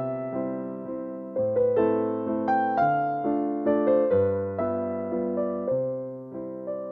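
Background music: a piano playing chords and a melody, each note struck and then fading.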